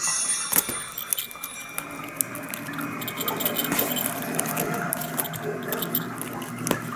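A cat playing inside a fabric play tunnel: rustling of the tunnel material and scattered clicks and taps as it paws at a ribbon toy. A low steady hum sits underneath from about two seconds in.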